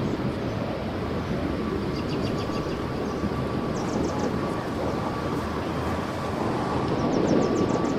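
Steady low outdoor rumble, like wind or distant traffic, under a faint steady hum. Three short runs of rapid high ticks come about two seconds in, around four seconds in, and near the end.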